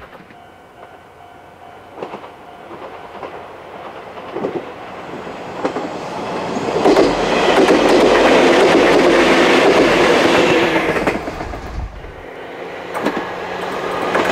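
Chichibu Railway 7500-series electric train approaching and passing at speed, its wheels clicking over the rail joints and the noise loudest as the cars go by. After a sudden drop, another 7500-series train is heard approaching, growing louder near the end.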